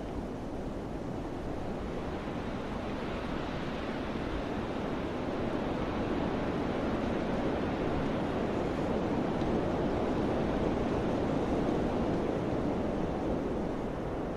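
Mountain wind blowing hard, a steady rushing that swells gradually through the middle and eases a little near the end.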